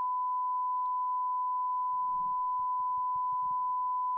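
Steady 1 kHz sine test tone from the recording console's oscillator, running unbroken as the line-up tone for calibrating the MCI JH-110 tape machine's VU meters to zero.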